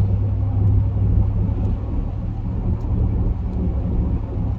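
Road and engine noise inside a moving vehicle's cabin: a steady low rumble with a faint hum.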